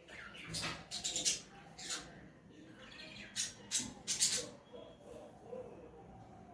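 A woman sneezing and sniffing in a string of short, breathy bursts, several in quick succession about a second in and again about three and a half seconds in.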